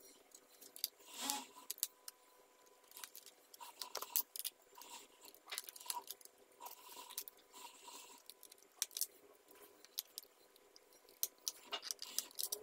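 Quick, irregular small clicks and light scrapes of a screwdriver working the bottom-case screws of a Lenovo IdeaPad 320 laptop, over a faint steady tone.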